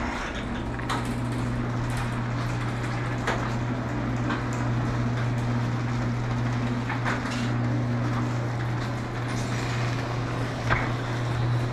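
Electric garage door opener running as the sectional garage door rolls up on its track: a steady motor hum with occasional clicks and rattles from the door.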